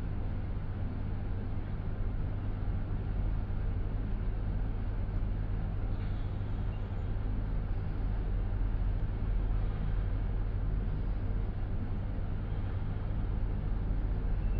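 A 1994 Express passenger lift travelling upward, heard from inside the car: a steady low hum and rumble while the car is in motion.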